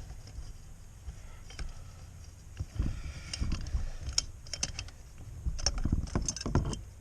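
Irregular metallic clicks and clinks of the muffler and tools being handled as the muffler comes off a Stihl MS211 chainsaw, growing busier from about three seconds in.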